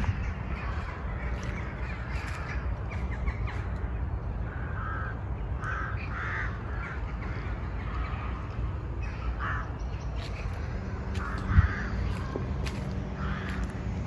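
Birds calling in short calls repeated every second or so, over a steady low rumble, with a single thump late on.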